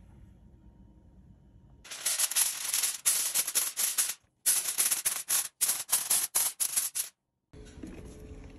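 Aluminium foil crinkling and crackling loudly as it is crumpled and pressed into shape by hand, in a rapid run of crackles with a brief break about four seconds in.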